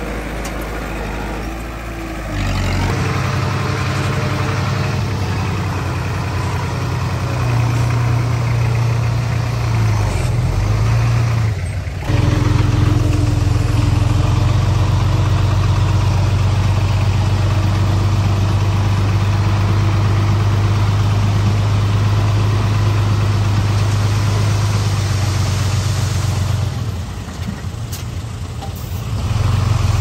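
Heavy diesel engine of earthmoving machinery running under changing load. It picks up a couple of seconds in, dips briefly near the middle, then runs strongly and drops back for a few seconds near the end before picking up again.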